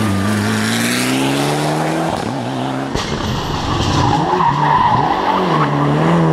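Rally car engine revving hard and rising in pitch, with a gear change about two seconds in. A rushing tyre-slide noise follows as the car slides through, then the engine climbs again near the end.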